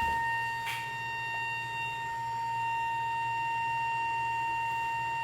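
Toilet flush plumbing whistling: water forcing through the valve gives a steady high tone with fainter higher overtones over a low rushing hum. It is a fault that comes back after each flush.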